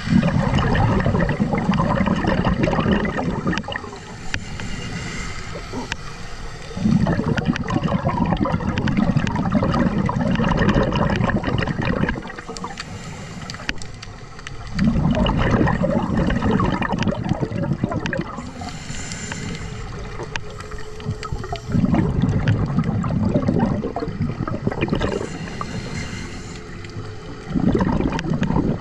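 Scuba diver breathing through a regulator underwater. Five loud rushes of exhaled bubbles come about every seven seconds, with quieter hissing breaths in between.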